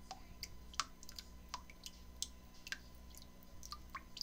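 Faint scattered clicks and short ticks at irregular intervals, some with a quick falling pitch, over a low steady hum.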